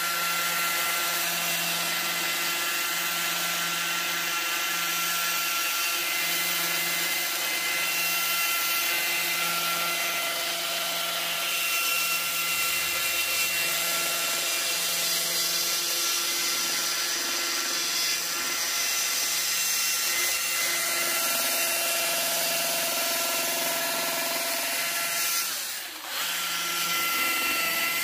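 Battery-powered Husqvarna chainsaw running and cutting into a wood block, a steady electric motor sound with the chain biting the wood. It lets off briefly near the end, then cuts again.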